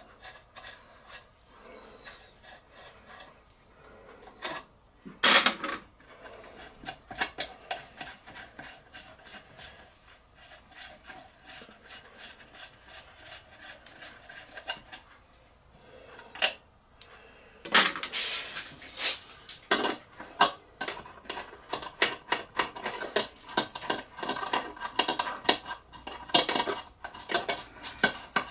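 Metal clinks and scraping as nuts and fittings are worked by hand on a small steam engine on the bench, with a sharp knock about five seconds in and a busier run of rapid clinks from about eighteen seconds on.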